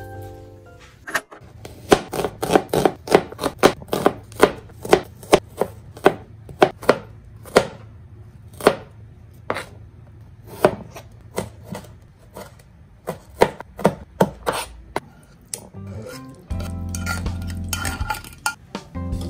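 Kitchen knife chopping red onion on a plastic cutting board: a long run of quick, uneven knife strikes, about two to three a second, that stops a few seconds before the end.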